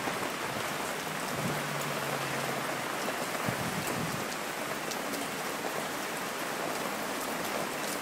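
Heavy rain pouring down steadily on the wet street, with water dripping and splashing off the edge of a cloth awning overhead.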